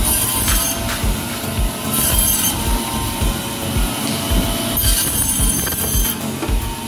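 Electric band-type bone saw running and cutting through fish, with a high-pitched screech each time the blade bites, three times, over a low thump about twice a second.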